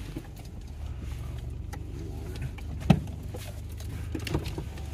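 Pickup truck heard from inside the cab as it rolls slowly over rough grassy ground: a steady low engine and road rumble, with one sharp knock about three seconds in and a few lighter clicks.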